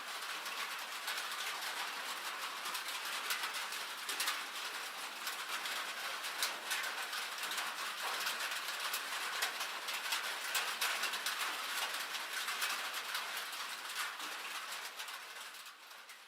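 Rain and hail falling on a metal roof: a dense hiss of drops with many sharp ticks of hailstones striking the sheet metal, fading out near the end.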